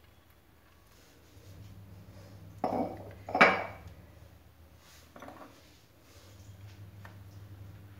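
Steel kitchenware clanking: two sharp metal knocks close together about two and a half to three and a half seconds in, the second the loudest, and a lighter clink about five seconds in.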